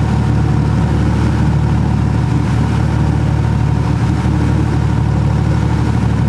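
Towboat's engine running at a steady drone under load while towing a sailboat astern, with the wash of the wake around it.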